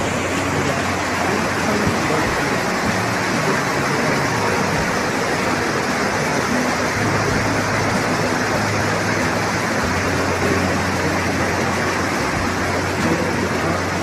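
Steady rushing of a mountain river and small waterfall, under a low vehicle engine hum that grows a little stronger in the second half.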